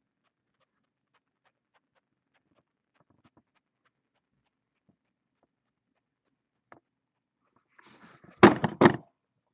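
Near silence, then a dog barks twice in quick succession near the end.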